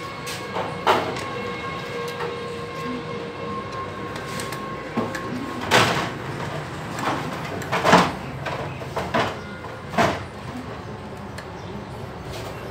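Steel hand tool knocking and clinking against the bolts and engine case of a Bajaj Pulsar 150 while a long socket tool is fitted and turned on a case bolt: a handful of sharp metallic knocks a second or two apart.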